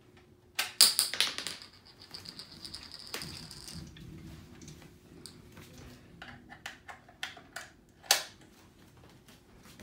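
Plastic clicks and clatter from a toy helicopter's spring launcher. About a second in it fires with a sharp snap and its projectile clatters on the wooden floor, with a thin high tone lasting about three seconds. Then come small irregular plastic clicks as the toy is handled, with one sharper click near the end.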